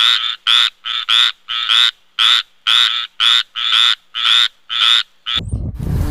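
A frog calling in a fast series of short, loud croaks, about two to three a second, some in close pairs, that stop shortly before the end.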